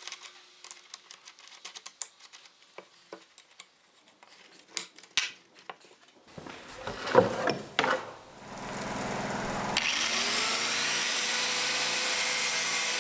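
Clicks and knocks of handling an angle grinder and fitting a disc to it. Then, about ten seconds in, a corded right-angle grinder comes up to speed and runs steadily, its disc grinding rust off the steel fender of a 2007 Chevy Silverado pickup.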